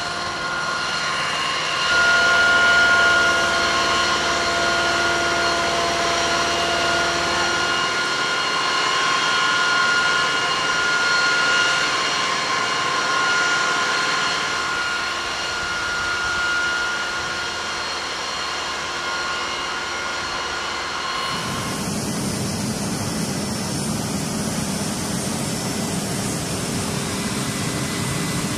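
Flight-line jet engine noise: a steady whine of several high tones over a roar. About two-thirds of the way through it changes abruptly to a lower, rougher rumble.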